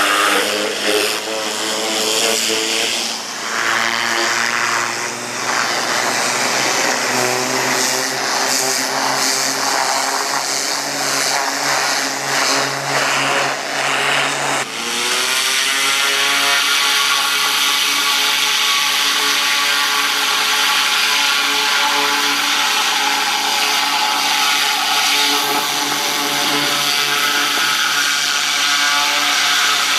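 Easy-Kleen gas-powered hot-water pressure washer running with its high-pressure jet hissing against a steel excavator track. About halfway through, the sound shifts with a short rise in pitch, then runs steady.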